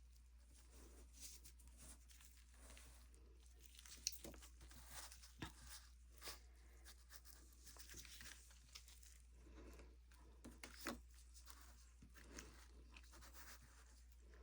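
Faint, irregular handling noise: scattered crackles, scrapes and soft clicks, with one sharper click about four seconds in.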